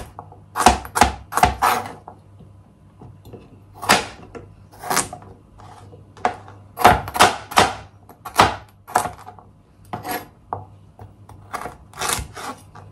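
Kitchen knife dicing raw carrots on a plastic chopping board: irregular runs of short, sharp knocks of the blade hitting the board. After the first four strokes there is a pause of about two seconds before the chopping resumes in uneven clusters.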